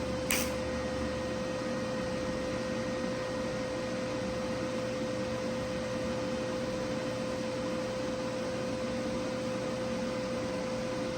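WeldPro TIG 200 welding stainless steel: a steady hiss with a constant hum-like tone, after a brief sharp crackle just after the start.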